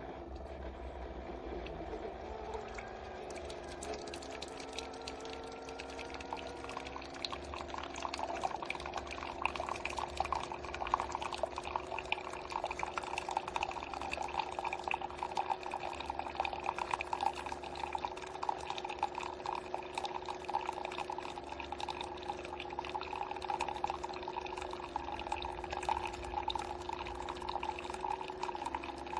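Keurig K-Duo coffee maker running a descaling cycle: its pump hums steadily while hot water pours and splashes out of the brewer. The pouring grows louder about eight seconds in and then keeps on evenly.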